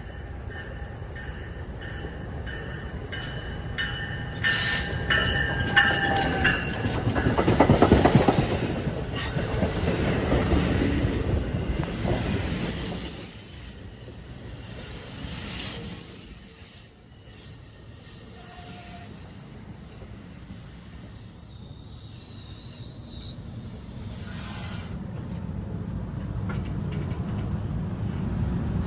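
Train moving through the station: the steel wheels grind and squeal on the rails, loudest about eight seconds in. It eases off after that and builds again near the end.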